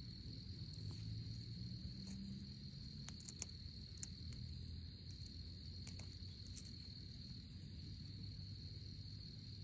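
Steady chorus of crickets, a constant high trill, over a low rumble, with a few faint clicks in the middle.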